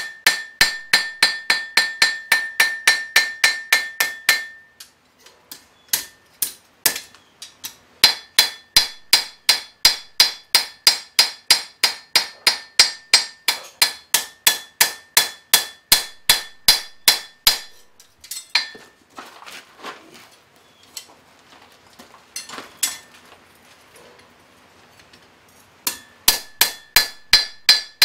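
Blacksmith's hand hammer striking a hot horseshoe blade on the anvil in fast, even blows of about three a second, each leaving the anvil ringing at a steady pitch. The hammering thins to a few scattered knocks for a few seconds early on and again for several seconds in the last third, then picks up again near the end.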